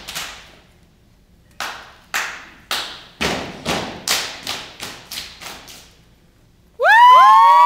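A step team's body percussion: about ten sharp claps and slaps in a steady beat of roughly two a second, then a short pause. Near the end, a loud, sustained shout from several children's voices at once.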